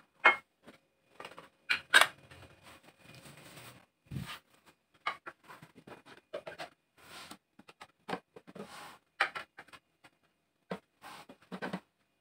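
Dishes and plates being set down on a counter: irregular clinks and knocks of ceramic and plastic, with short scrapes. Near the end, a rice paddle scrapes rice from the rice cooker's inner pot.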